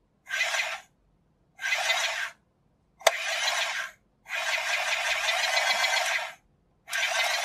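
Toy rice cooker's small electronic speaker playing a hissy cooking sound effect in five short bursts with silence between, each set off by a press of the side button. A sharp click from the button about three seconds in.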